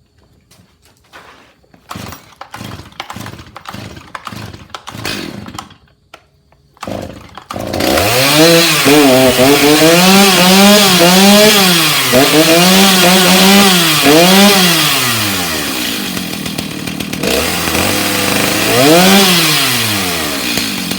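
Stihl 290 two-stroke chainsaw being pull-started: a series of starter-cord pulls, then the engine catches about seven seconds in and runs loud, revved up and down several times before dropping away near the end.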